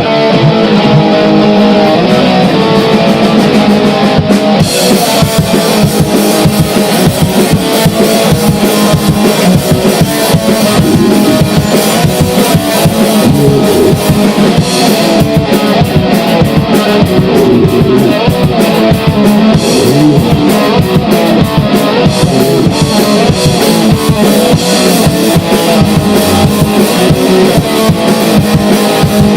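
Grindcore/noise-core band recording. An electric guitar riff plays alone at first, then the drum kit comes in about four seconds in with fast, dense drumming and cymbals under the guitar.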